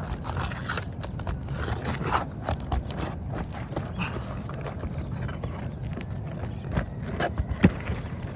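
Irregular knocks and scrapes of hand tools prying up a roof shingle and working its nails loose, with one sharp knock near the end.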